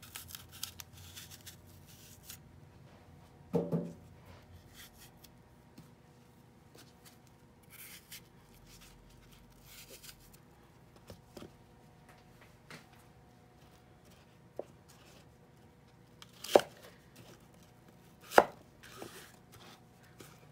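A kitchen knife cutting an apple: soft slicing scrapes and light clicks, a duller thud about three and a half seconds in, and two sharp knocks on the cutting board near the end.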